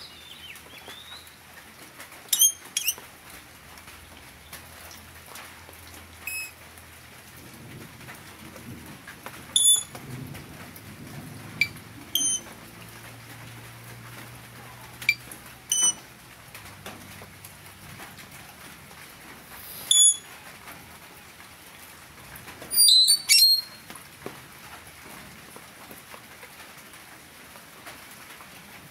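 Blue-rumped parrot kept as a decoy, giving short, shrill, high-pitched calls, singly or in quick pairs, every few seconds, with a quick cluster of louder calls about four-fifths of the way through.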